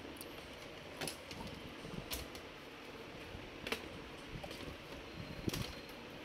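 A few scattered sharp clicks and taps of small hard parts being handled on a workbench as a laptop motherboard is worked on, over a faint steady hiss.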